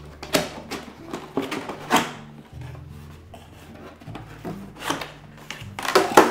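Cardboard box flaps being worked loose and pulled open by hand: a handful of short scrapes and rubs of cardboard on cardboard, the loudest near the end as the lid flap is swung back.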